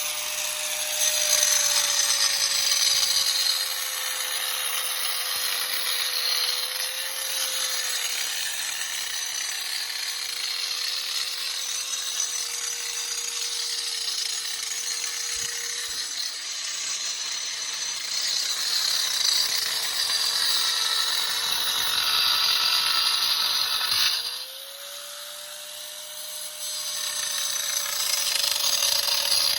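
Electric power tool cutting steadily, its motor whine sagging a little under load. About 24 seconds in it eases off and the whine rises, then it bites in again a few seconds later.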